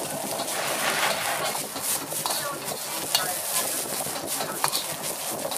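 Metal ladle scraping and knocking against a carbon-steel wok at an uneven pace as bean sprouts, cabbage and carrot are stir-fried, over a steady sizzle of the food in hot oil.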